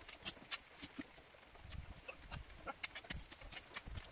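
A spade digging into stony soil: irregular sharp clicks and scrapes of the blade against stones and earth, with a few dull thuds as it is driven in.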